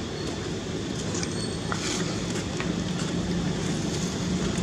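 Low, steady engine rumble from a motor vehicle, with a hum that grows stronger about halfway through.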